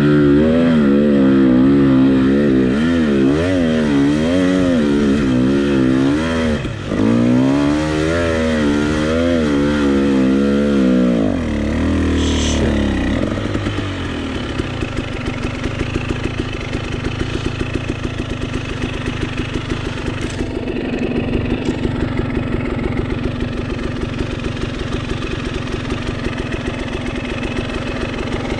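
Enduro dirt bike engine pulling up a grassy hill track, its pitch rising and falling quickly with the throttle for about the first twelve seconds. It then drops to a steady idle with an even pulsing beat for the rest.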